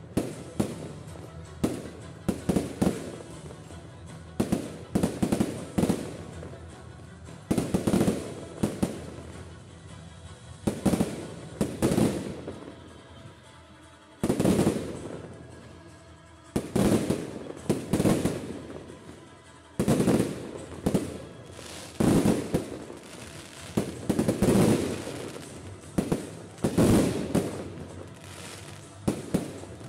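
Fireworks display: aerial shells bursting one after another, sharp booms arriving in clusters every second or two, each trailing off in a short echo.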